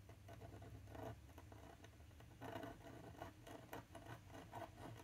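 Faint scratching of a metal pen nib writing in short, irregular strokes on textured card.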